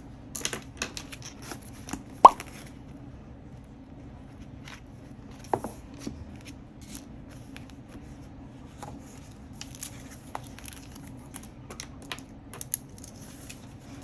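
Paper handling while annotating a book: scattered crackles and tearing rustles of sticky tabs being peeled and pressed onto pages, and pages being handled. Two sharp clicks stand out, a little over two seconds in and again around five and a half seconds.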